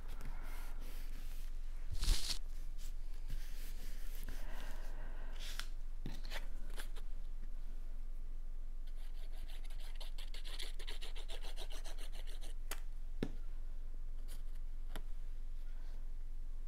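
Cardstock being handled and pressed down by hand on a cutting mat: paper rubbing and scraping with scattered clicks, a louder scrape about two seconds in, and a rapid scratchy rasp for a few seconds in the middle.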